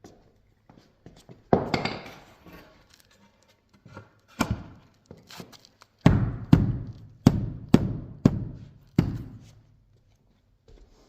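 A series of heavy wooden thunks and knocks from reclaimed pine flooring planks being worked on the floor: two single knocks, then a quick run of about six in the second half.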